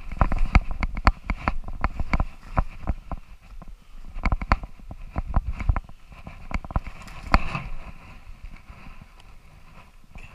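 Irregular crunching footsteps in shallow snow and dry leaves, with rustling and low thumps of movement, thinning out and quieter near the end.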